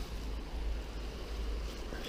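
Wind buffeting the microphone: a steady low rumble with little else over it.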